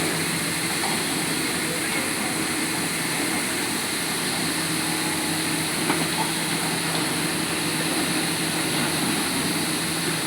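Engine of a Sany drilling rig running steadily under a constant mechanical din, with one brief click about six seconds in.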